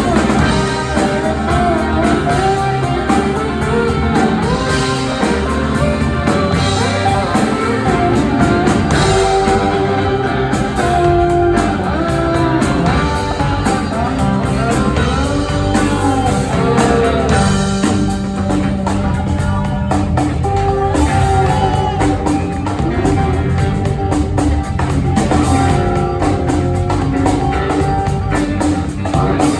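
Rock band playing an instrumental break live, with guitar lines over bass and drum kit.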